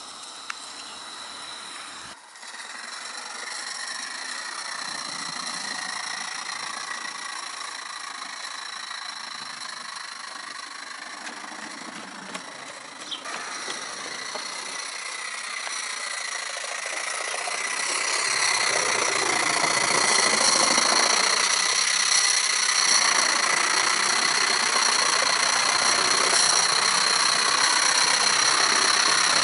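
Coal-fired vertical-boiler model steam locomotive running along garden-railway track: a steady mechanical running noise that grows clearly louder a little past halfway through.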